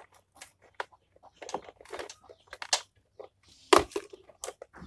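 Scattered clicks, scrapes and rustles of things being handled and rummaged through, with one sharp knock a little before four seconds in.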